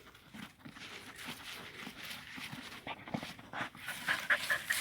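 Dog panting in quick breaths, getting louder near the end.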